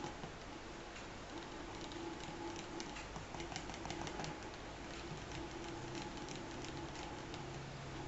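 Small wire whisk stirring a melted oil balm in a small cosmetic jar: light, fast, irregular clicking as the wires tap the jar.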